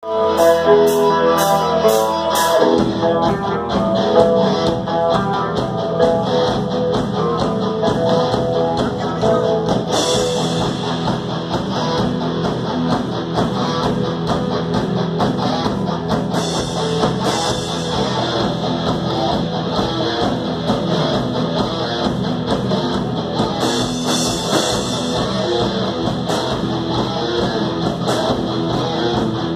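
Live rock band playing amplified, with electric guitars and a drum kit. A sparser guitar opening over steady ticks gives way to the full band with a driving drum beat about two and a half seconds in.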